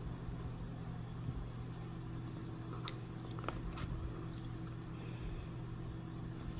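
Steady low room hum, with a faint steady tone joining about two seconds in and a few light clicks about three to four seconds in.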